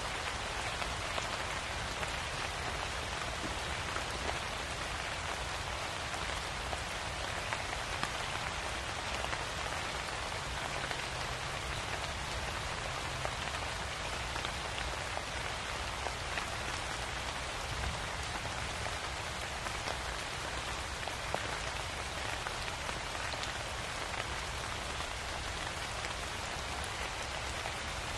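Steady rain: an even hiss with faint scattered ticks of individual drops, unchanging throughout.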